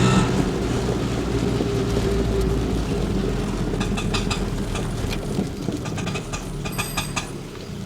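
Auto rickshaw engine easing off from a steady run into a lower, fading rumble as the vehicle slows. Short high-pitched brake squeaks come about four seconds in and again about seven seconds in.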